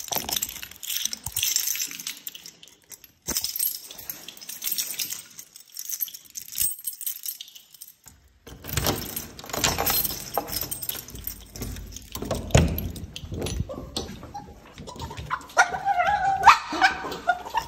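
Clicks, knocks and rustles of handling around a door. Near the end a dog whines.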